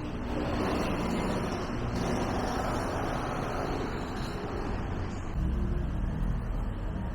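Street traffic noise: a continuous rumble of passing road vehicles that grows louder and deeper about five seconds in, as a vehicle passes close by.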